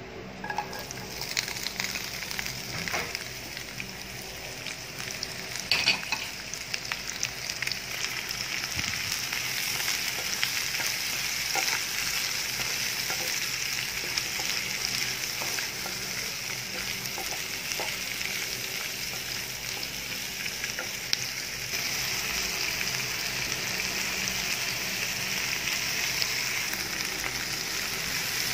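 Onion, garlic and bell peppers sizzling in hot oil in a nonstick pan while being stir-fried with a wooden spatula: a steady frying hiss that grows slightly louder as it goes, with a few knocks and scrapes of the spatula against the pan.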